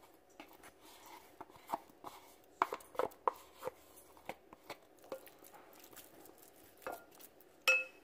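Wooden spoon scraping ricotta cheese out of a plastic tub into a glass mixing bowl: scattered soft scrapes, taps and knocks, a quick run of them about three seconds in. Near the end comes a single sharper knock that rings briefly.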